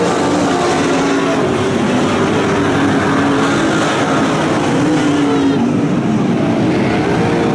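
Several Super Stock dirt-track race cars racing past at full throttle: a loud, steady roar of engines, with their notes wavering up and down as the cars pass and come through the turns.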